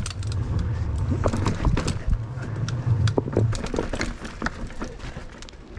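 Mountain bike moving over rough trail: irregular knocks and rattles over a low rumble, the rumble easing off after about three and a half seconds.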